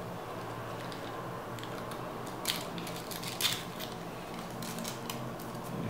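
Hobby knife cutting through a model plane's paper covering: a few short scratchy rasps, the loudest about two and a half and three and a half seconds in, over a steady low hum.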